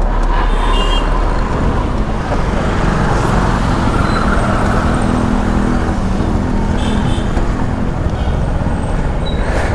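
Wind noise on the microphone with a two-wheeler's engine running underneath, while riding through city traffic among other motorbikes and scooters.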